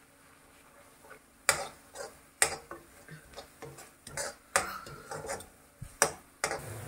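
A spatula stirring thick frying masala in a kadhai, knocking and scraping against the pan in about a dozen irregular strikes that start about a second and a half in. The masala is being fried until the oil separates at the sides.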